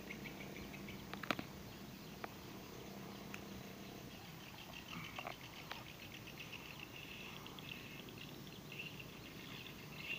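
Faint outdoor background of high, rapid chirping, with a few sharp clicks, the loudest about a second in, as a plastic fitting is worked into a hole drilled in a PVC irrigation pipe.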